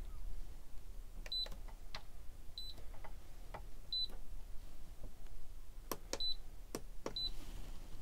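Alde 3020 heating control panel giving a short, high beep at each button press and screen touch: five beeps at uneven intervals, with a few faint fingertip taps between them.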